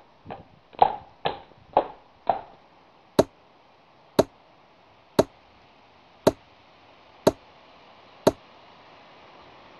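A horse's hoofbeats clopping at an even pace for the first two seconds or so, then an axe chopping into a log, six sharp blows about a second apart: hewing the log square.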